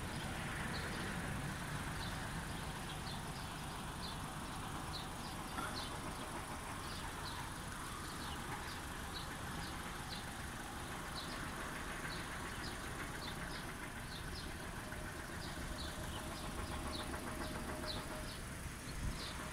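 Steady hum of many honeybees foraging in a flowering eucalyptus tree, with short high chirps repeating about twice a second.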